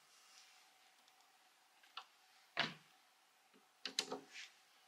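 Faint clicks and knocks from handling a plastic suitcase wheel, its screw and a Phillips screwdriver while fastening the wheel onto its stem. There is a single click about two seconds in, a louder knock shortly after, and a quick cluster of clicks near the end.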